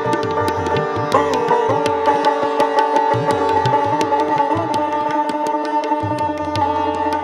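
Sitar and tabla playing Hindustani classical music. The sitar plays quick plucked notes over its ringing sympathetic strings, with a bent note about a second in. Tabla strokes run underneath, and the bass drum holds a low tone near the end.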